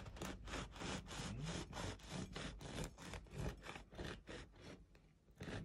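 Long knife sawing through the crust of a loaf of milk and cream bread, a rapid run of scraping back-and-forth strokes that fades out near the end.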